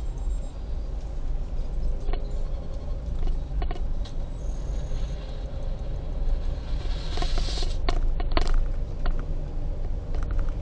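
Car driving slowly, heard from inside the cabin: a steady low engine and road rumble, with a rush of noise swelling about seven to eight seconds in and a few light clicks.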